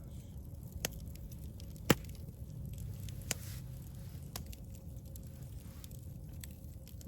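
Meat being seasoned and handled during food prep: a few sharp clicks and taps, the loudest about two seconds in, over a low steady hum.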